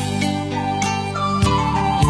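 Traditional Vietnamese cải lương ensemble playing an instrumental lead-in to a vọng cổ song: plucked string notes over held low bass notes, without singing.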